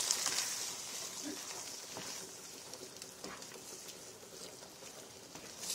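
Red curry paste and coconut milk sizzling in a frying pan while being stirred, with scattered clicks of the utensil against the pan. The sizzle fades over the first couple of seconds.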